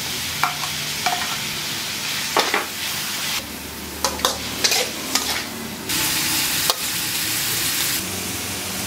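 Vegetables sizzling and frying in a metal wok while a metal spatula stirs them, with sharp clinks of metal utensils against the pan. The sizzle grows louder about six seconds in and eases near the end.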